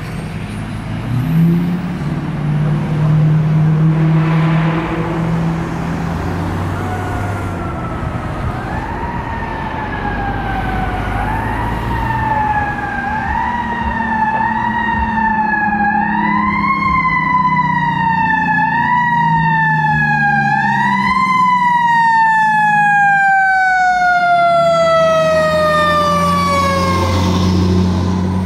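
Fire truck siren wailing in uneven rises and falls, then sliding down in one long fall near the end, over the truck's low running drone.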